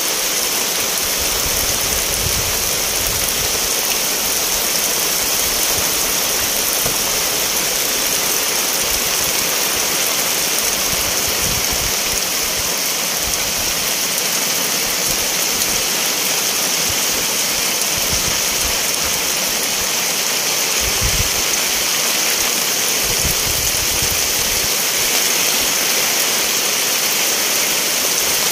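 Steady heavy rain falling, an even, unbroken hiss.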